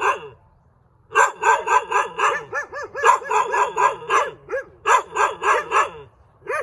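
A dog barking rapidly, about four barks a second, in two long runs: the first starts about a second in, and the second follows a short break.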